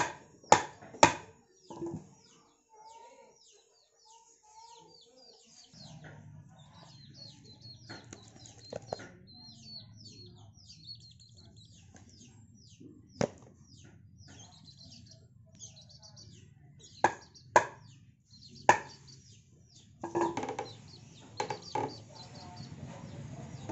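Cleaver chopping through a fish on a wooden block: sharp single chops, two at the start and four more spread out later on. Birds chirp in the background throughout.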